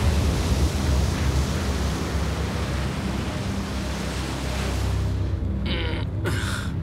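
Storm waves crashing over a crab boat's deck: a loud wash of breaking water, spray and wind with a deep rumble. A little over four seconds in it gives way to a quieter, steady low hum.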